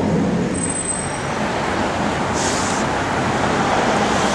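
Slow city street traffic: car engines idling and creeping along over a steady road rumble, with a short hiss about halfway through.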